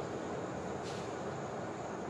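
Steady background room noise with one brief chalk scrape on a blackboard about a second in.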